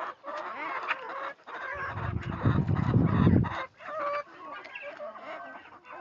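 A flock of backyard chickens clucking and calling, many short overlapping calls, hungry hens waiting to be fed. A low rumble runs under them from about two seconds in to past three and a half seconds.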